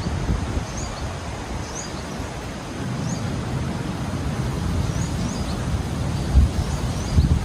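Strong wind buffeting the microphone in gusts, with a bird giving short, high, rising chirps about once a second.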